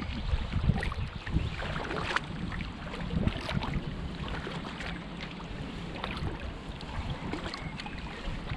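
Paddling a sea kayak: the Braca paddle blades dip in and splash water on alternate sides, with irregular short splashes over a steady low rumble of wind on the microphone.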